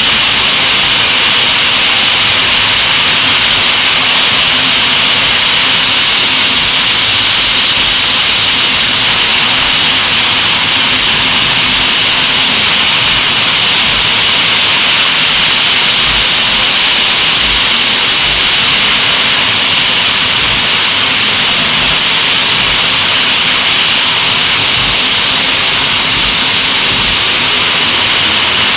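Waterfall pouring: a loud, steady rush of falling water that does not change.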